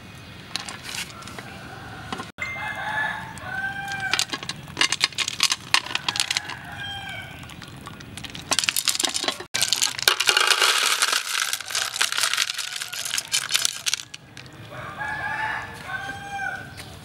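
Chickens calling in the background, with short arched rooster crows several times, over liquid being poured from an aluminium pot into a ceramic bowl. The pouring gives a splashing hiss, loudest in the middle, with some clatter.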